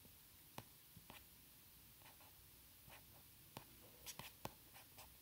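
Faint, irregular clicks of a computer mouse over near-silent room tone, with a quick cluster of clicks about four seconds in.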